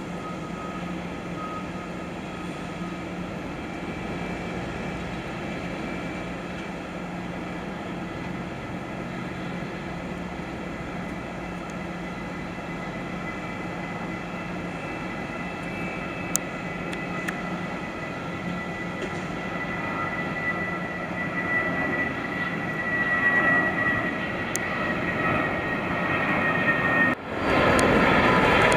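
Jet airliners' turbofan engines at take-off power: a steady rumbling drone with a high whine that grows louder in the second half. Near the end the sound cuts abruptly to a louder, closer take-off.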